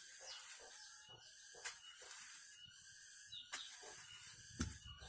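Knife cutting a pear into pieces, with about four sharp knocks a second or two apart.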